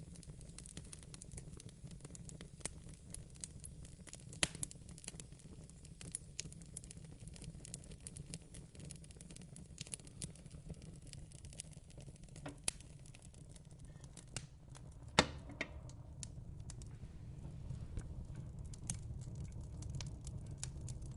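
Wood fire burning in a fireplace, crackling with scattered sharp pops over a low steady rumble; the loudest pops come about four and a half, twelve and a half and fifteen seconds in.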